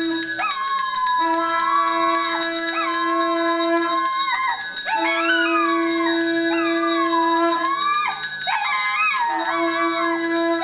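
A dog howling: several long, wavering howls that rise and fall in pitch. Under them run three long, steady held notes of a few seconds each, with short gaps between.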